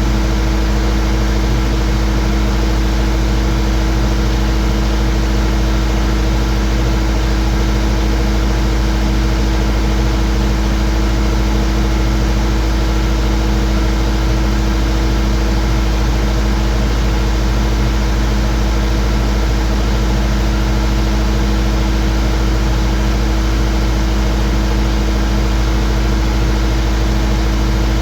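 Skid steer's engine running at a constant speed, a steady low drone that does not change in pitch or level.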